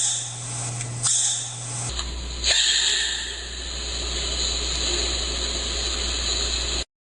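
Slowed-down panda sneeze: after two short hissy snuffles about a second apart, a sudden hissing blast about two and a half seconds in, drawn out for several seconds, that cuts off abruptly.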